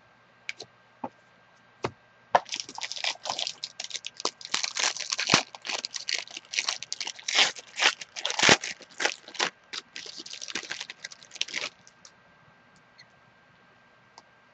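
Crinkly plastic or foil card packaging being handled and torn open. A few light clicks come first, then about nine seconds of dense crackling and rustling that stops abruptly.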